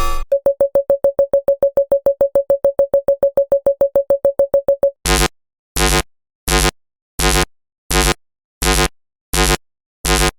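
Two synthesized sci-fi alarm sounds in turn. First comes a fast run of short single-pitch beeps, about seven a second. About five seconds in it switches to a slower alarm of eight longer, buzzier beeps, a little more than one a second.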